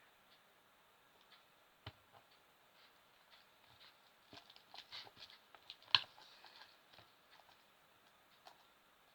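Homemade glue-and-detergent slime being mixed: faint, scattered sticky clicks and small pops, growing busier a few seconds in, with one sharper click about six seconds in.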